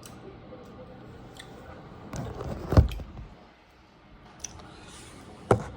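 A person chewing a bite of chicken, with a louder thud about three seconds in and a sharp click near the end.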